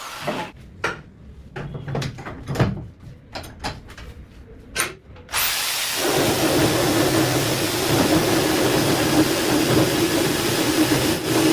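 A few sharp clicks and knocks, then about five seconds in an electric drill starts and runs steadily with a loud, even whir.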